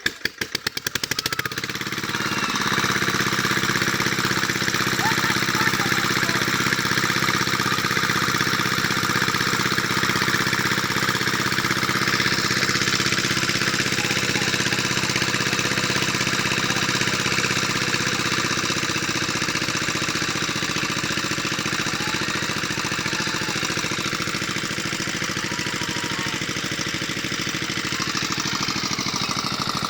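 A small engine catches, its firing strokes speeding up over the first two seconds, then runs steadily with a knocking beat.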